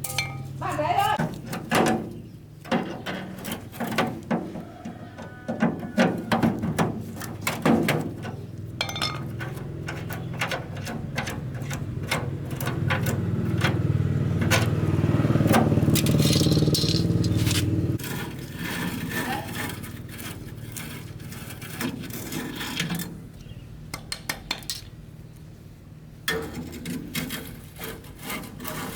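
Hand tools and metal parts clinking, scraping and rattling during work on a blower. A steady low motor hum builds in the middle and cuts off suddenly.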